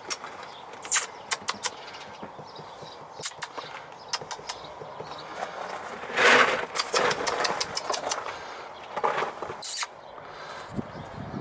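A cat chewing and tugging at a plant's leaves: scattered short clicks and crunches with rustling, and the loudest rustle, lasting about a second, comes about six seconds in.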